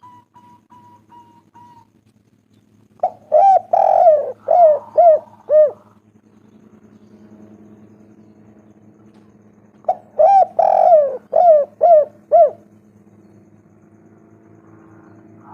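Spotted dove (tekukur) cooing: two phrases of five or six coos each, about seven seconds apart. It is a lure call for getting other spotted doves to call.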